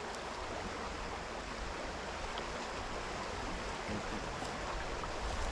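Small brook rushing steadily past the bank, a constant even water noise.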